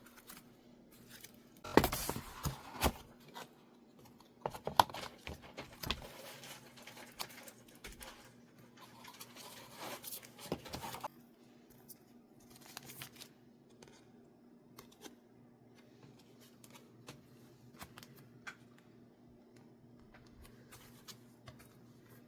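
Mail packaging being opened: paper or plastic mailers torn and rustled in a few loud bursts over the first ten seconds or so, then only small clicks and handling noises.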